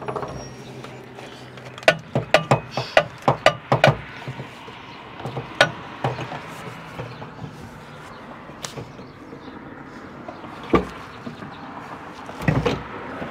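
Metal tapping and clanking at a tow truck's hydraulic cylinder mount: a quick run of about ten taps, roughly four a second, then a few scattered single knocks.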